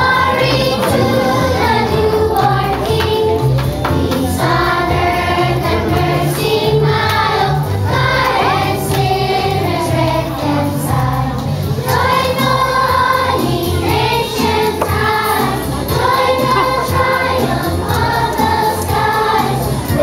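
Children's choir singing a song together over backing music with a steady, repeating bass beat.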